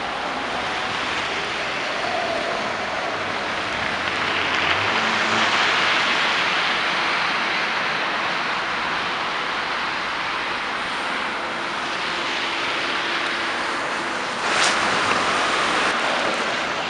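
Steady rushing noise of street traffic and wind on the microphone, swelling about four to seven seconds in, with a sudden jump in loudness near the end.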